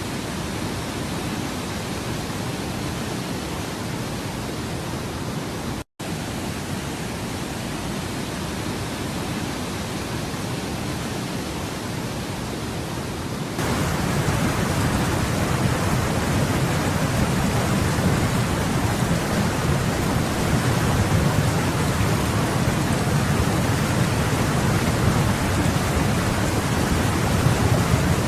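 Steady rushing noise of heavy rain. It cuts out for an instant about six seconds in, and about fourteen seconds in it becomes louder, with a deeper rumble.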